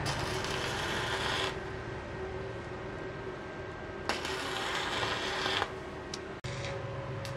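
Stick arc welding on steel: the arc crackles and sizzles in two stretches of about a second and a half each, with a few sharp ticks near the end.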